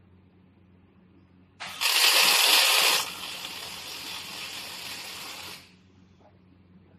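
Scaffolding crossbar automatic welding machine working: a loud hiss starts about one and a half seconds in, drops to a quieter steady hiss a little over a second later and stops near the end, over a faint low hum.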